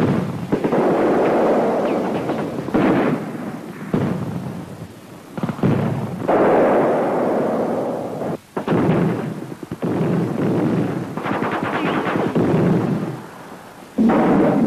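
Battle sounds: rapid gunfire and heavy blasts in several sudden bursts, each breaking in abruptly, with short lulls between them.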